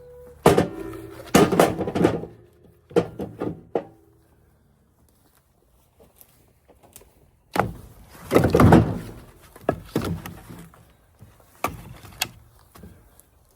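Split firewood being loaded: pieces knocking and thunking against one another in irregular clusters, some impacts with a brief hollow ring.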